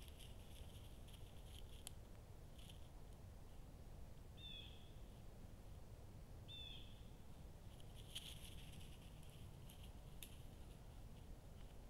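Faint night-time woodland ambience: a short high chirp from a small animal repeating every two seconds or so, a few sharp clicks, and a low steady hiss from the trail camera's microphone.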